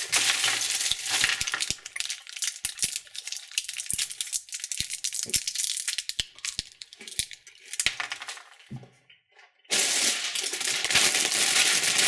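Wrapped candies being handled: plastic wrappers crinkling, with many small clicks and clinks as sweets knock together. It falls briefly quiet about nine seconds in, then a louder run of crinkling follows.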